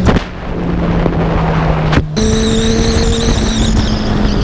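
Kawasaki Z1000 inline-four engine running at highway speed, with wind rushing over the microphone. The engine note drops just after the start and steps back up about two seconds in.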